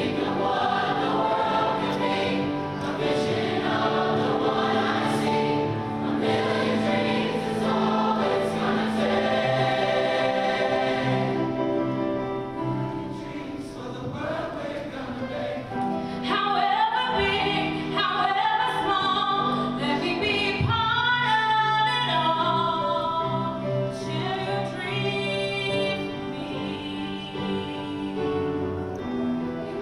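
Large mixed high school choir singing sustained chords in harmony. About halfway through the texture thins and a single voice with wide vibrato stands out above the choir.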